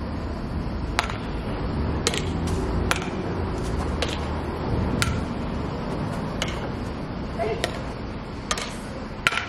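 Badminton rackets striking a shuttlecock in a rally: sharp pinging hits about once a second, a few with a short string ring, over a low steady rumble.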